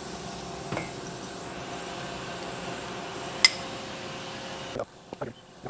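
Metal clinks of a crane hook and chain being lowered away from a heavy steel part held in a lathe chuck, over a steady machine-shop hum. One sharp clink comes about three and a half seconds in, and a few lighter knocks near the end.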